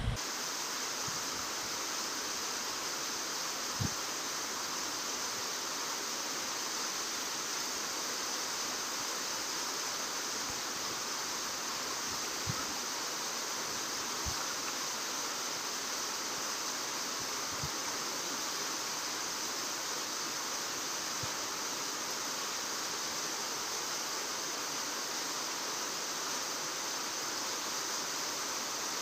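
Steady outdoor background hiss, even throughout and strongest in the high range, with a few faint soft knocks scattered through it.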